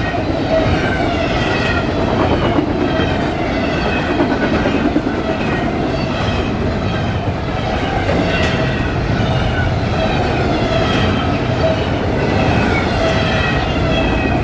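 A freight train's double-stack container well cars rolling past, a continuous noise of steel wheels on rail with a thin steady tone over it.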